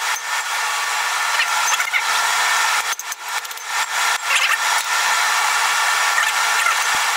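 A steady rushing noise, with a few hammer blows on a steel punch used as a drift to widen a hole in hot mild steel on the anvil, about three to four and a half seconds in.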